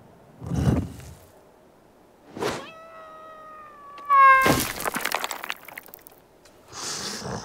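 Cartoon sound effects of the pyramid's stone blocks giving way: a low thud, a whoosh, then a drawn-out creaking tone that slowly falls in pitch. About four seconds in comes a loud crash with rattling debris, and a short hissy burst near the end.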